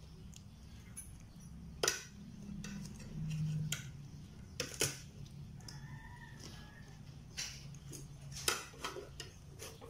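A metal fork clicking and tapping on a plate a handful of times while someone eats. A rooster crows faintly in the background about six seconds in.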